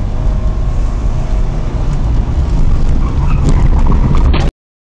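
Police patrol car driving: steady engine and road rumble heard from inside the cabin. The sound cuts out completely for about half a second near the end.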